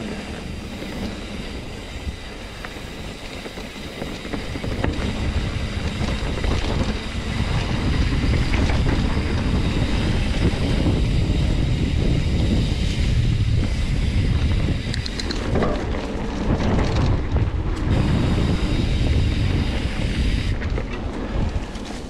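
Riding noise from a Trek Roscoe 9 hardtail mountain bike on a dirt singletrack: tyre rumble and frame rattle over the trail, with wind buffeting the microphone. It grows louder about a third of the way in as the speed picks up.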